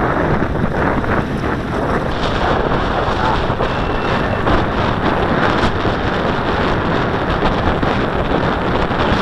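Strong wind buffeting a cap-mounted camera's microphone in a steady rumbling rush, over choppy lake water washing against the shore.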